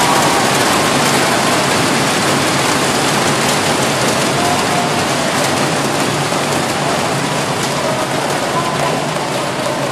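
Large arena crowd applauding and cheering, a dense roar of clapping with a few faint shouts, slowly dying down.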